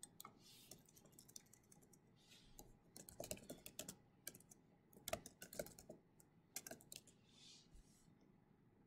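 Faint computer keyboard typing: several short runs of key clicks, stopping about a second before the end.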